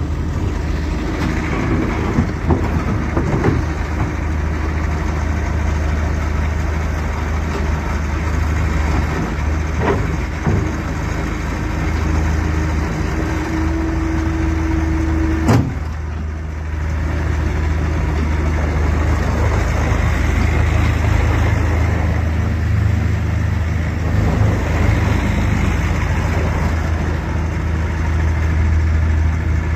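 Bobcat S650 skid steer loader's 74.3 hp Doosan diesel engine running steadily, with a few knocks and one sharp clank about halfway through, just after a brief steady whine.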